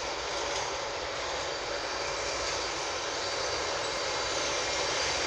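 Siemens class 1216 (Taurus) electric locomotive running as it pulls slowly past on departure: a steady rushing drone with faint steady tones in it, growing slightly louder.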